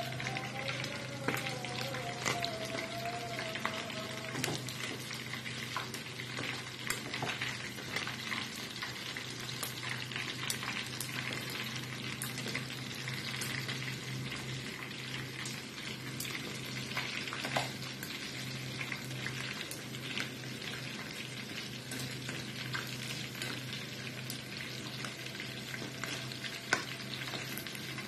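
Chicken pieces frying in a pan of hot oil: a steady sizzle thick with crackling pops.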